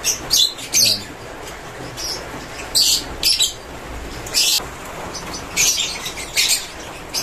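Caged lovebirds giving short, shrill chirps, about ten sharp calls at irregular intervals.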